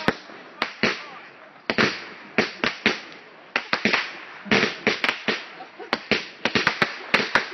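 Fireworks exploding: a rapid, irregular string of sharp bangs, each trailing off briefly, coming thicker toward the end.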